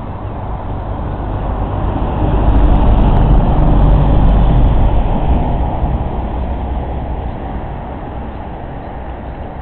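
A heavy road vehicle passing close by: a deep engine and tyre rumble that swells to a peak about three to five seconds in, dropping slightly in pitch, then fades away.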